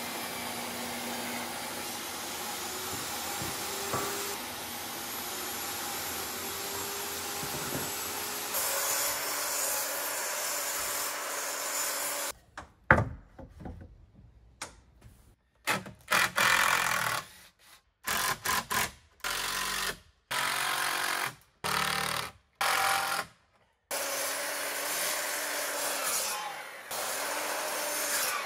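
A sequence of power tools cutting and fastening lumber: a table saw runs steadily through a 2x4 for about twelve seconds, then a power drill drives screws in a string of short bursts with pauses between, and near the end a miter saw runs steadily through a block of wood and winds down.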